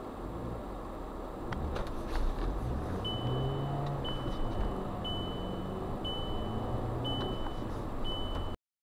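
Cabin noise of a car driving in city traffic, with a high electronic warning beep sounding about once a second, six times, from about three seconds in. The sound cuts off abruptly near the end.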